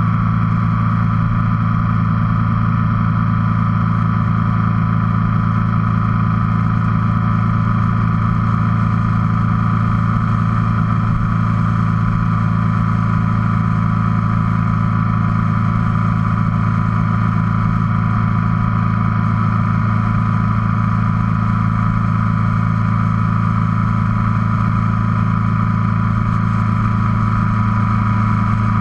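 Motorcycle engine running steadily at cruising speed, with wind and road noise, picked up by a camera mounted on the bike; the engine note holds the same pitch throughout.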